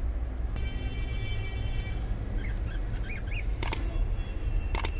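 A few short, faint bird chirps over a steady low rumble of background noise, with a faint ringing tone early on and two sharp clicks near the end.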